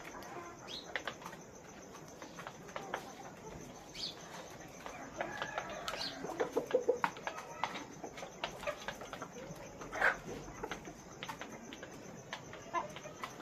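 A flock of farm chickens clucking and murmuring, with wing flaps and many scattered sharp clicks throughout.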